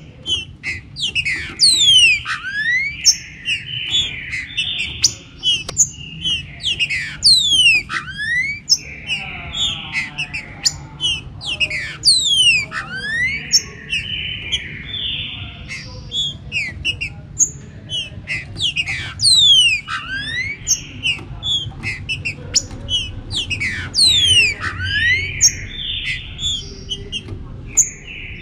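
Green-winged saltators (trinca-ferro) singing and calling: a fast, unbroken run of sharp whistled sweeps mixed with harsh chattering notes, over a low steady hum.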